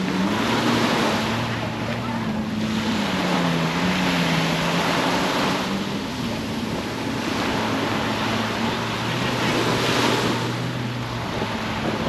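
Surf washing onto the beach, swelling about every four to five seconds, with a motorboat engine droning across the water, its pitch wavering in the first half and then holding steady.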